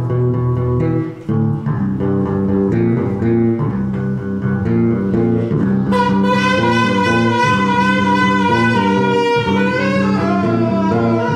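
Electric bass guitar playing a plucked line of short notes. About six seconds in a saxophone comes in over it with one long held note, then moves to other notes near the end.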